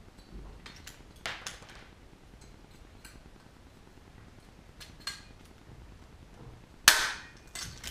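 Hand rivet gun setting a small blind (pop) rivet: a few light clicks as the handles are squeezed, then a loud sharp snap about seven seconds in as the rivet's mandrel breaks off.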